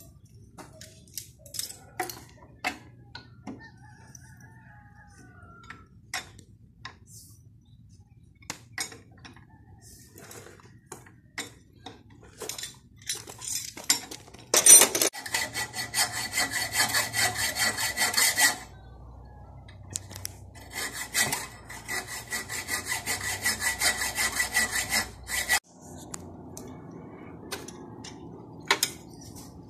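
Hand tools working on a VW Beetle engine: scattered metal clinks and taps, then two spells of fast rasping strokes, each several seconds long, with a short pause between them.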